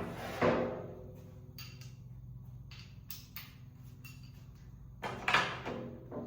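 Two clanks of metal wheelbarrow parts being handled during disassembly, each with a brief ring, about half a second in and again near the end.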